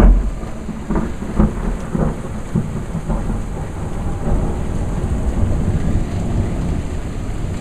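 Thunder rumbling over steady rain, loudest at the start with a few sharp cracks in the first couple of seconds, then settling into an even patter of rain as the rumble rolls away. The hail has just stopped; only rain is falling.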